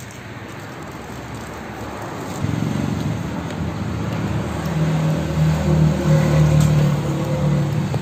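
A motor vehicle's engine humming steadily, growing louder from a couple of seconds in and loudest toward the end, as if passing close by.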